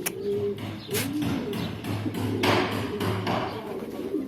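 Domestic pigeons cooing, broken by a few sharp knocks.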